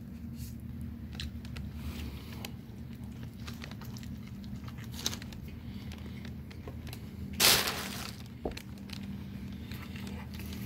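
Close-up chewing and mouth noises: scattered short wet clicks and smacks. About seven and a half seconds in there is a short, loud burst of hissing noise. A steady low hum runs underneath.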